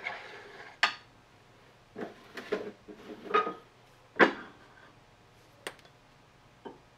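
Irregular metal knocks and clunks on a lathe's back-gear assembly as the back-gear shaft and casting of a Hendey 12-inch cone-head lathe are worked loose for removal: about eight short, sharp knocks spread out, the loudest a little past the middle.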